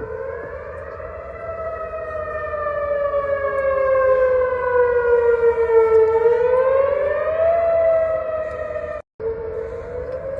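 Whelen outdoor warning sirens sounding the wail tone, the pitch sliding slowly down, then rising over a couple of seconds and falling again. The sound cuts out for an instant about nine seconds in, then resumes.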